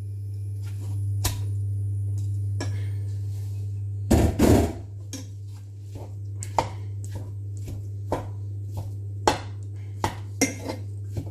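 Kitchen utensils knocking and scraping as minced meat is put into a frying pan: a run of sharp knocks and clicks, with a louder cluster about four seconds in, over a steady low hum.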